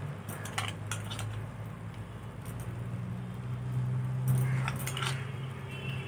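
Metal spoon clinking and scraping against a non-stick frying pan as chicken pieces are pushed around on an omelette, with a cluster of clinks about four seconds in, over a steady low hum.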